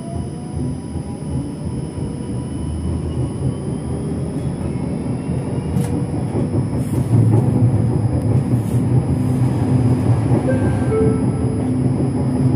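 A tram running, heard from the driver's cab: a low rumble of wheels on rail that grows steadily louder as it gathers speed. At first the traction drive's whine rises in pitch and then fades.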